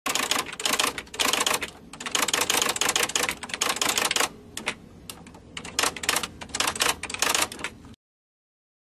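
Rapid typing on keys: dense runs of clacking keystrokes in bursts with short pauses, stopping abruptly about eight seconds in.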